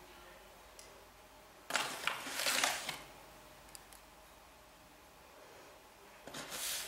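Spoon digging sugar out of a paper packet and tipping it into a bowl: two short bursts of gritty rustling and scraping, one about two seconds in and a shorter one near the end.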